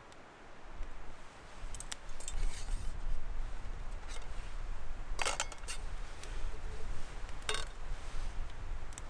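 Metal camp cookware clinking as it is handled: a few light clicks, then two sharper clinks with a brief ring, over a steady low rumble.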